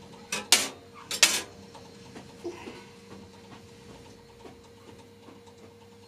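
Metal clamps and fixing pieces being taken off a surface plate by hand: a couple of sharp metallic clinks in the first second and a half, then faint small taps and handling sounds.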